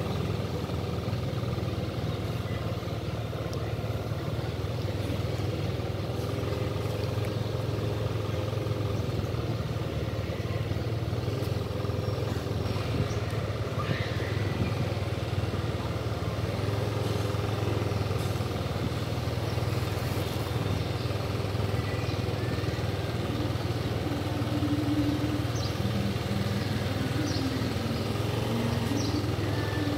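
Motorbike engine running steadily, an even low hum throughout, with faint voices in the background near the end.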